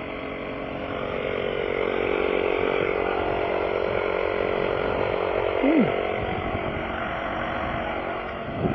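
A motor running steadily with a mechanical hum, growing a little louder after about a second and easing off after about six. A brief high squeak rises and falls near the middle.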